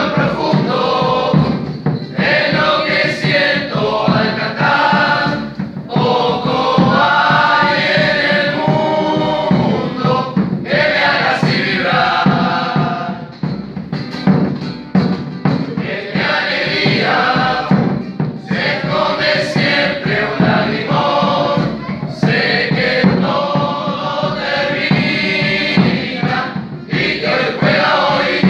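Mixed group of men and women singing a murga song together, in phrases of a few seconds with short breaks between them, accompanied by an acoustic guitar.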